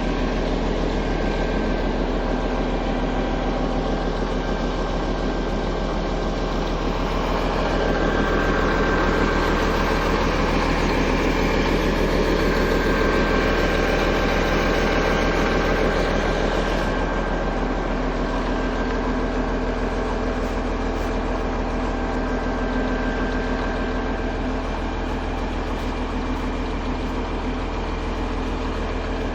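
Caterpillar D6C bulldozer's diesel engine running steadily. It works harder and louder for several seconds in the middle, then settles back.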